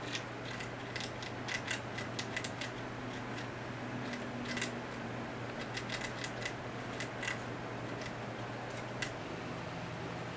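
Pet rat gnawing the fibrous husk of a whole coconut: irregular runs of sharp little crunching clicks.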